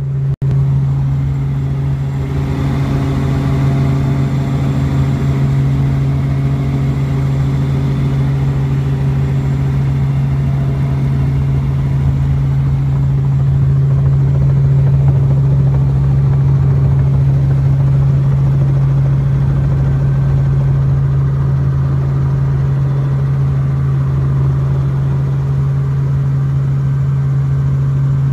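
Robinson R44 helicopter's six-cylinder piston engine and rotor running steadily, a loud constant drone heard from inside the cabin. It starts abruptly and holds without change.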